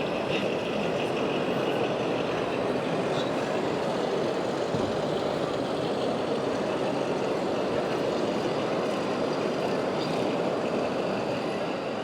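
Steady din of 1/14-scale RC trucks and construction machines running, their truck-engine sound modules and motors blending into one even noise.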